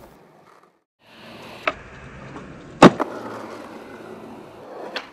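Skateboard wheels rolling over pavement, with a light tap about a second and a half in and a loud, sharp clack of the board against the ground near three seconds in.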